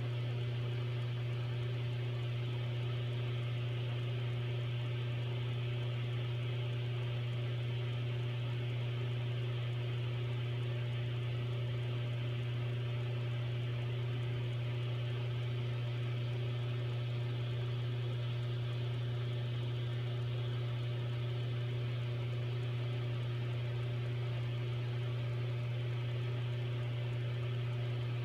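Steady hiss of a glassblowing bench torch flame over a constant low hum, with no change throughout.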